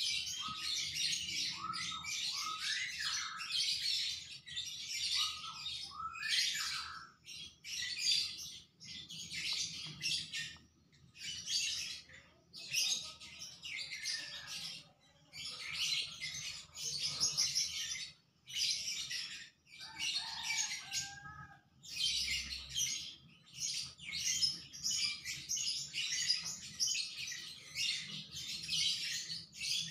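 Birds chirping in rapid, high-pitched bouts of one to three seconds with short pauses, mixed with a few short whistled notes that slide in pitch.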